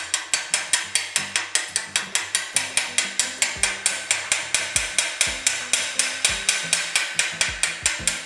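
Chipping hammer tapping slag off a stick-weld bead on a thin 1.3 mm steel box section. It is a rapid, even run of sharp metal-on-metal taps, about five a second.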